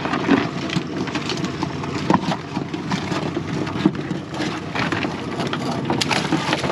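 A boat's outboard motor idling, with irregular knocks and clatter over it.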